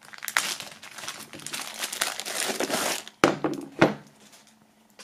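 A clear zip-lock plastic bag crinkling as a wooden box is worked out of it, followed by two knocks a little after three seconds in as the box is set down on the wooden table.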